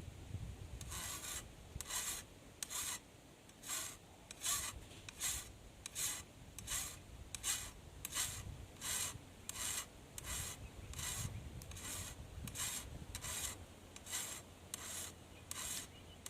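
A hand file rasping along the steel edge of a cane knife in steady, even strokes, about one every three-quarters of a second, each a short bright scrape with a quiet gap between. The edge is being filed to work out a nick left by striking a rock.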